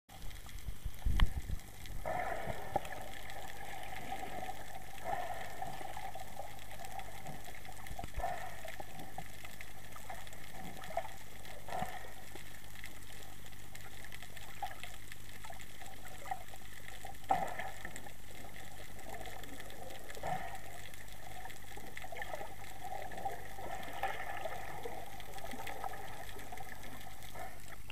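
Steady, muffled sea-water noise recorded by a camera held underwater. A heavy thump comes about a second in, and a few faint knocks follow later.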